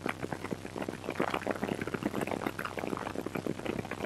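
Wind buffeting the microphone in the open, doors-off cabin of a helicopter in flight: an irregular, crackling rush, with a faint steady drone of the helicopter underneath.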